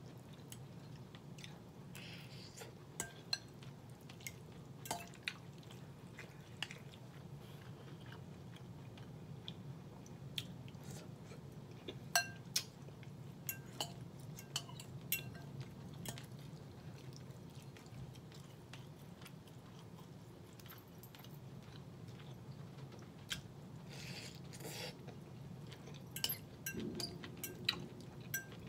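Chewing of sautéed cabbage and smoked turkey, with a metal fork clinking and scraping against a glass bowl every few seconds, over a low steady hum.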